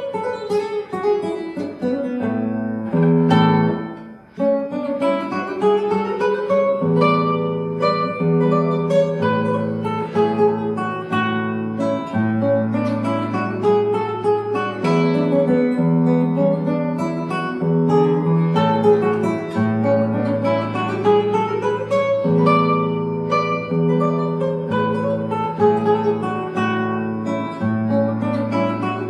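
Solo classical guitar played fingerstyle: a plucked melody over bass notes, with a brief break about four seconds in.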